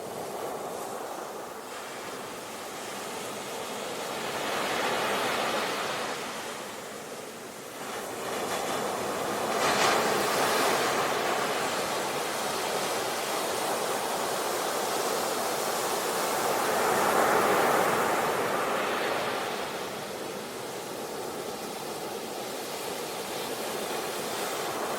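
Ocean surf: waves breaking and washing in, swelling and easing in turn. One breaks sharply a little before halfway through, and another swells up about two-thirds of the way in.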